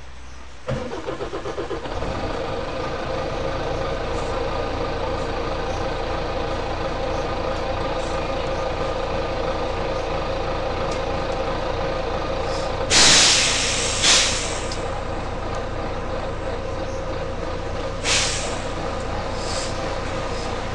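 Volvo B9TL bus's six-cylinder diesel is cranked and starts about a second in, then idles steadily. Its compressed-air system lets out three loud hisses, a long one about two-thirds of the way through, a short one right after, and another near the end.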